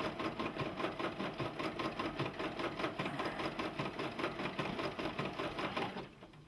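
Brother PE770 home embroidery machine stitching at a steady, rapid rhythm of needle strokes, about seven a second, then stopping about six seconds in as it finishes a colour block and waits for the next thread colour.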